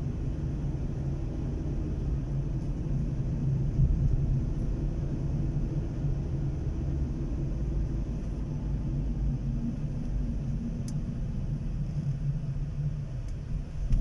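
Car driving, heard from inside the cabin: a steady low rumble of road and engine noise, swelling briefly about four seconds in.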